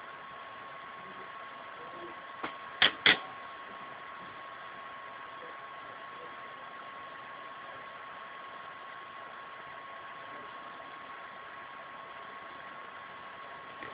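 Steady recording hiss with a faint, steady high whine. About two and a half seconds in it is broken by three quick sharp clicks, the last two loudest.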